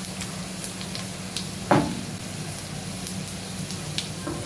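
Sliced onions and cumin seeds sizzling in hot oil in an aluminium kadai, the tempering (baghar) for kadhi, with scattered small crackling pops. A single knock rings out a little under two seconds in.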